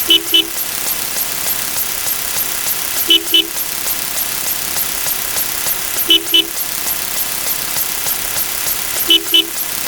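Car horn sound effect: a short double 'beep beep', repeated four times about every three seconds, over a steady background noise with faint rapid ticking.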